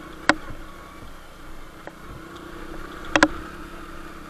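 Motorcycle engine running at low speed on a rutted dirt track, a steady hum, with two sharp knocks: one just after the start and a double one about three seconds in.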